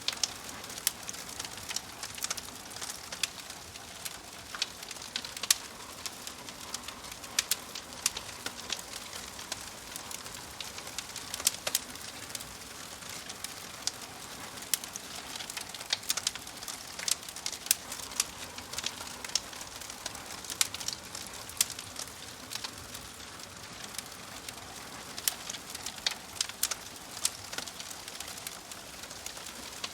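Wood fire crackling: frequent irregular sharp pops and snaps over a steady soft hiss.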